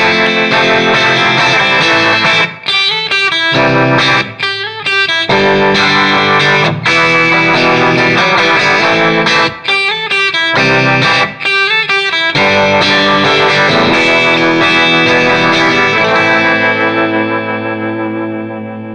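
Electric guitar played loudly through a 1964 JMI Vox AC30 valve amp's vibrato channel: chords with a few short breaks between them, and the last chord left ringing and dying away near the end.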